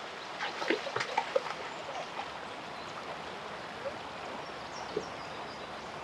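Steady hiss of a small stream's running water. About half a second to a second and a half in there is a quick cluster of light ticks and small splashes. Faint high chirps come near the end.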